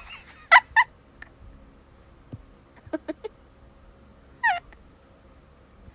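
A person wheezing: two short squeaky whistles on the breath about half a second in, then one longer whistle that falls in pitch near the four-and-a-half-second mark, with a few faint clicks between.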